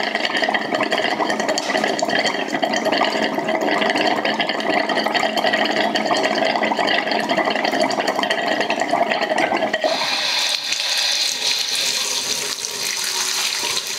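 Hot-water tap at a bathroom sink left running open to bleed air out of the lines while the electric water heater's tank refills. About ten seconds in, the water sound changes to a brighter, steady hiss.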